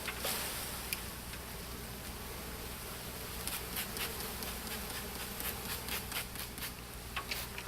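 Honey bees from a three-pound package buzzing as they are worked out of the package box into the hive, with many light ticks in the second half.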